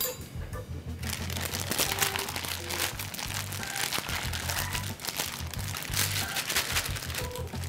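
Plastic zip-top bag crinkling and rustling as hands knead the chicken pieces and starch inside it, starting about a second in, over background music.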